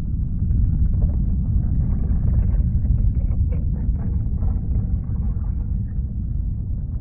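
Underwater ambience sound effect: a deep, steady rumble of moving water.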